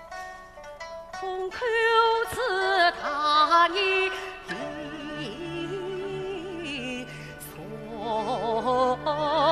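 Yue opera aria sung by a woman in a male xiaosheng role, with orchestral accompaniment. A run of short instrumental notes opens, then she sings a long, drawn-out phrase with heavy vibrato. The line sinks lower over a held bass note, and the voice climbs again near the end.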